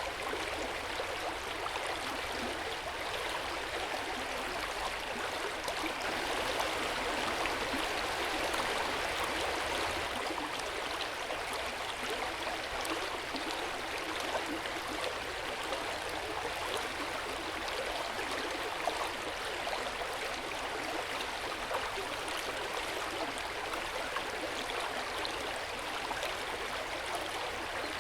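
Hot-spring water running into an open-air bath, a steady splashing flow with no break.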